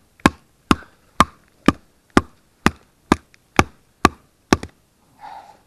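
A knife being batoned through wood: sharp wooden knocks of a baton striking the blade's spine, evenly spaced at about two a second.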